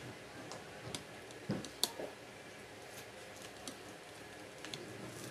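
Scattered light clicks and taps at irregular intervals from hands working a strap fastener that holds a fishing rod to a fishing bag.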